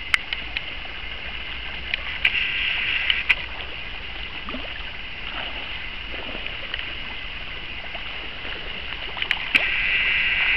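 Shallow river water running over a gravel bed: a steady rushing hiss that swells again near the end, with a few sharp clicks.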